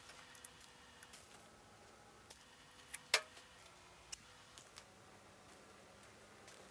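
Scattered light clicks and small metal taps as a steel patch panel is fitted into the hole in a Land Rover bulkhead, with one sharper click about three seconds in.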